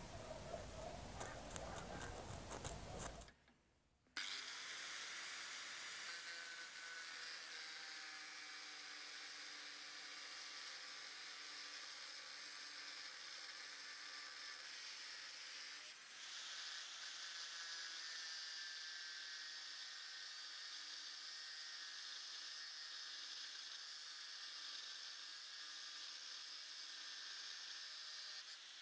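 Small rotary tool's abrasive disc spinning up about four seconds in, then running with a steady high whine and a grinding hiss as it cuts a small brass or copper lure part held in pliers, winding down near the end. Before it, a few seconds of scratching as the brass spoon blank is marked.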